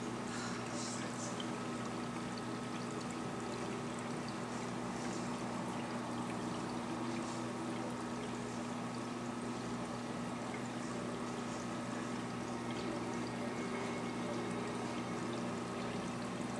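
Reef aquarium's circulation: steady pouring and trickling water over a constant low hum.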